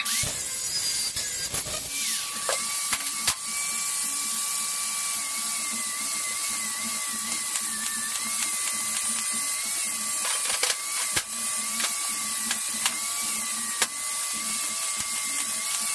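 Electric angle grinder running and grinding stainless-steel tubing, its whine wavering as the disc loads against the metal, with a few sharp clicks along the way.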